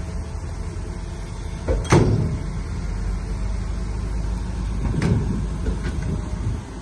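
Heavy earthmoving machinery's diesel engine running steadily under load, with a loud metallic clank about two seconds in and a second, lighter clank about five seconds in.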